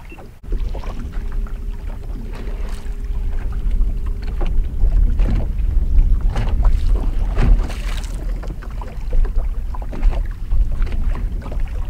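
Wind buffeting the microphone in an uneven low rumble, with small waves slapping against a fishing boat's hull.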